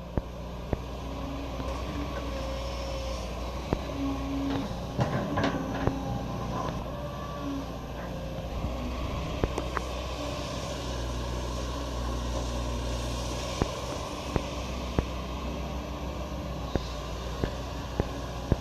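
Caterpillar 320D hydraulic excavator digging soil: its diesel engine runs steadily under load, with scattered knocks and clunks, a cluster of them about four to seven seconds in.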